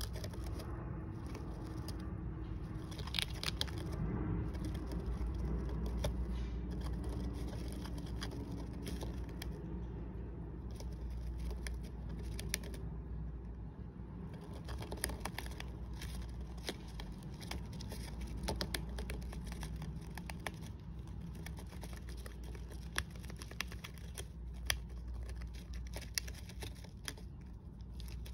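Dwarf hamster gnawing and scrabbling at a wooden chew stick in wood-shaving and paper bedding: rapid, irregular small clicks and crunches, over a steady low hum.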